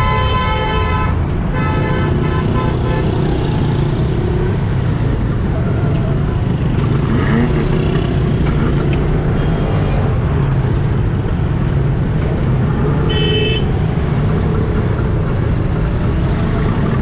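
Steady low rumble of engines in slow, congested road traffic. A vehicle horn sounds two longer blasts in the first three seconds and one short honk about 13 seconds in.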